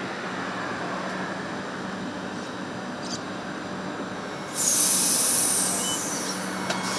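Adelaide Metro 4000-class electric train running with a steady hum beside the platform. About four and a half seconds in, a sudden loud hiss of compressed air starts and fades away over about a second and a half.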